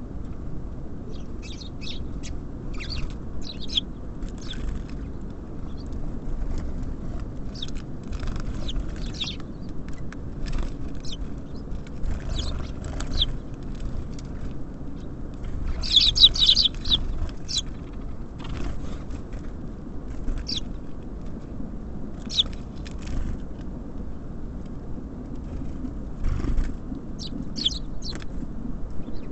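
Small songbirds giving short, high chirps and calls scattered throughout, with a louder, denser flurry of chirping about halfway through. A steady low rumble runs underneath.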